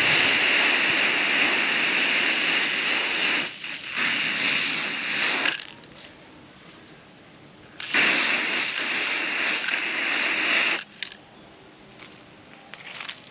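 Aerosol can of black spray paint hissing in three bursts. A long spray of about three and a half seconds is followed by a brief break and a second spray of about a second and a half. After a pause, a third spray of about three seconds comes in near the middle.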